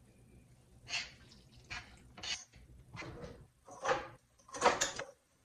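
Spoon scraping and clinking against a stainless steel pan as tamale masa is stirred, in about six short strokes spaced under a second apart.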